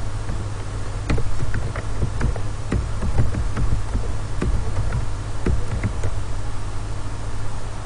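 Irregular clicks of computer keyboard keys and a mouse, several a second, fewer toward the end, over a steady low hum.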